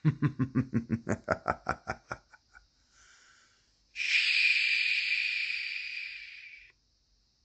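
A man's rapid pulsing laugh, about a dozen quick beats that fade out over two seconds. About four seconds in he gives a long hissing "shhh" that lasts nearly three seconds.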